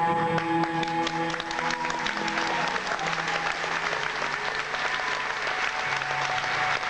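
Audience applauding over music with held notes; the clapping thickens over the first couple of seconds and stays dense.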